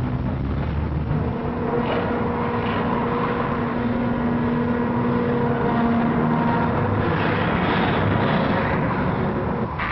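Road traffic: a steady rumble and hiss of cars and other vehicles, with a sustained low hum from about one second in until about seven seconds in.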